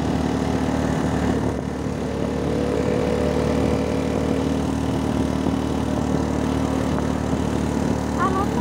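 Suzuki RC100's two-stroke single-cylinder engine running at a steady pace on the move, heard from the bike itself.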